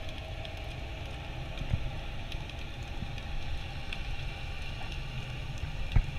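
Underwater ambience picked up through a camera housing: a steady low rumble of moving water with scattered faint clicks and crackles, and one sharp knock about six seconds in.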